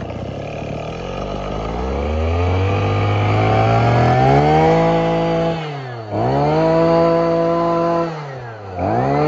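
Small engine of an old Robin 25cc brush cutter running, opened up slowly to high revs, then twice let drop briefly and revved straight back up, about six and nine seconds in.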